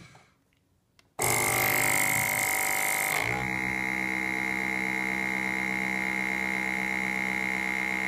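FoodSaver vacuum sealer's small electric diaphragm pump switches on about a second in and runs loudly and steadily, with a high whine over its motor hum. Its sound changes and settles about two seconds later as it draws against the blocked tube. It is pulling a good vacuum, which shows the pump and this stretch of tubing hold and the leak lies further along the piping.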